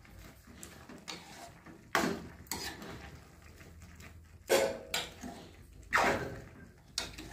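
Metal spatula stirring thick carrot halwa in a steel kadhai, scraping and knocking against the pan, with louder scrapes about two, four and a half, and six seconds in.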